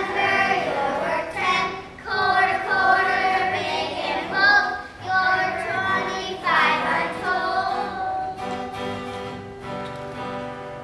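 A group of young children singing together to guitar accompaniment. The singing stops about three-quarters of the way through, and a last guitar chord rings on and fades.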